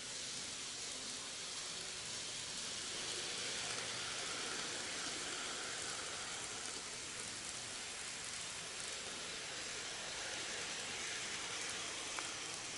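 N gauge model trains (Kintetsu 1252 series and 22600 series) running on the track: a steady rolling hiss of small wheels and motors, with a light click near the end.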